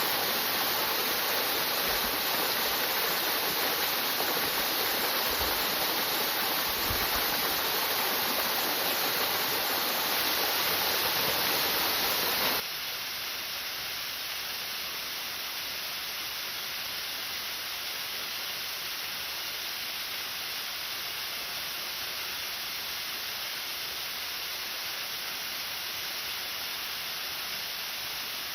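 Waterfall rushing in a steady, even roar of falling water. About halfway through it cuts suddenly to a quieter, thinner rush.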